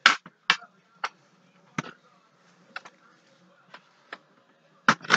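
About ten sharp clicks and knocks at irregular intervals as the small hard pieces of a multi-piece salt and pepper shaker set are handled and fitted together on a table. The loudest knocks come at the start and in a quick cluster near the end.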